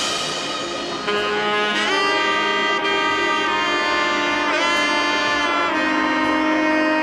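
Background music: sustained melodic notes on a horn-like lead instrument, with a held note that bends in pitch about halfway through.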